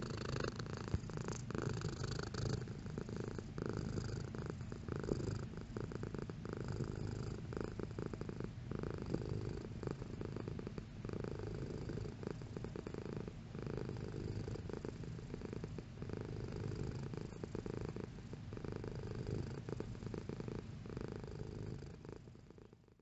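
Domestic cat purring steadily, with small dips every second or two, fading out near the end.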